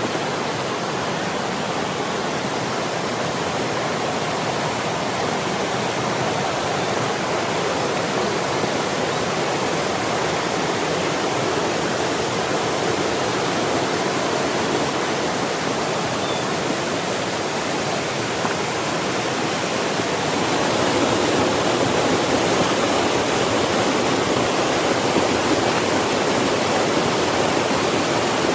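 Mountain stream rushing steadily, growing a little louder about two-thirds of the way through.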